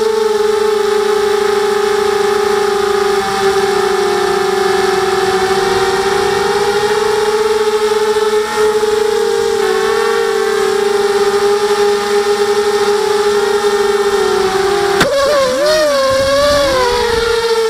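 FPV quadcopter's electric motors and propellers whining at a steady high pitch. About fifteen seconds in there is a sharp click, then the pitch swings down and up for a couple of seconds as the throttle changes, before it settles back to a steady whine.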